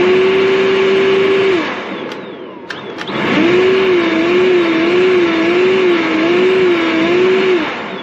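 Ryobi 40V brushless cordless leaf blower run in two bursts to blow out a dryer vent duct: a loud rush of air with a steady whine that rises as the motor spins up. It is cut back after about a second and a half, then comes on again about three seconds in, the whine wavering up and down evenly until it cuts off near the end.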